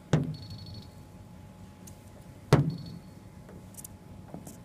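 T Hotbox PDR induction dent remover being pulsed on a car's sheet-metal panel: a sharp knock followed by a short high beep, twice about two and a half seconds apart, with a third knock at the very end.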